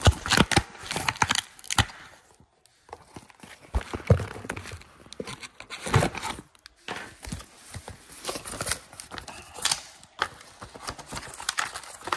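Cardboard box being opened by hand: tearing, crinkling packaging and knocks of handling close to the microphone, in irregular bursts with short pauses.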